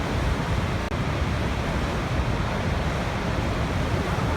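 Waterfall rushing: a steady, deep wash of falling water with no change in level.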